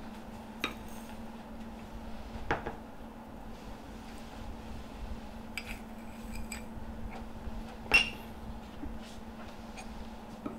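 A spoon and dishes clinking now and then while seasonings are measured and mixed: about five light knocks, some with a short ringing tail, the loudest about eight seconds in. A steady low hum runs underneath.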